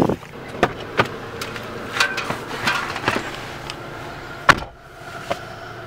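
Steady car interior hum, broken by a series of knocks and clicks from the camera being handled, the loudest a sharp knock near the end.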